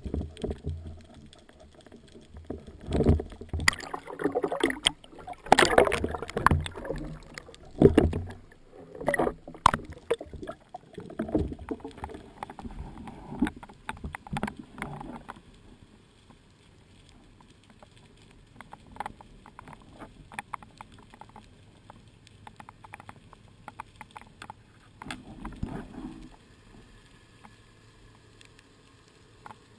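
Underwater noise picked up by a camera mounted on a speargun: irregular knocks, bumps and rushing water for about the first fifteen seconds, then quieter water with scattered faint clicks and one brief rush of noise near the end.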